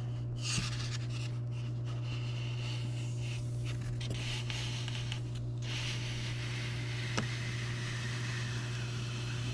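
Hot-wire foam cutter humming steadily while a block of XPS foam is pushed along its fence, the foam rubbing and scraping across the table top. One small click about seven seconds in.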